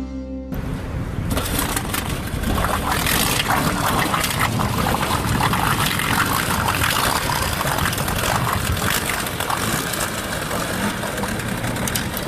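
Small outboard motor running on a small boat, a steady noisy sound that sets in about half a second in and grows louder after another second, with water and wind noise mixed in.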